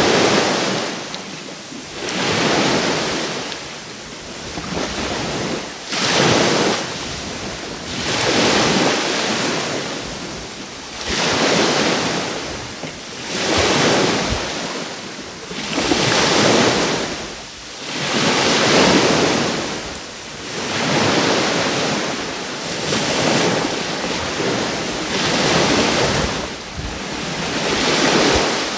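Sea waves breaking and washing onto the shore, the surf swelling and ebbing in regular surges about every two and a half seconds.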